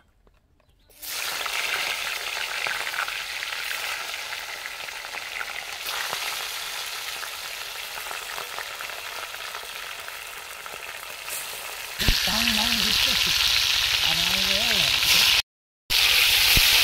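Turmeric-and-salt-rubbed fish pieces sizzling as they fry in hot oil in a wok, starting about a second in. The sizzle gets louder about twelve seconds in and briefly cuts out shortly before the end.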